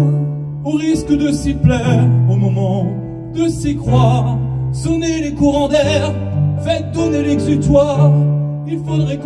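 A man singing with piano accompaniment he plays himself on a stage keyboard: held low chords under his wavering sung melody.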